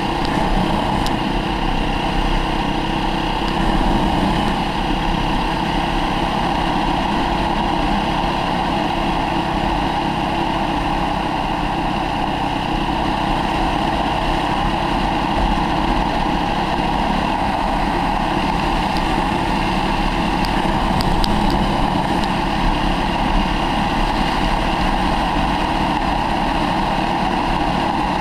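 Off-road motorcycle engine running steadily while riding, heard from the rider's head-mounted camera, with a constant rushing noise mixed in.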